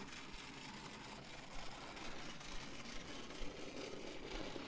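Faint, steady whirr of the wound spring motor in a Hornby clockwork Thomas the Tank Engine as the toy locomotive runs along the track, with a few light clicks.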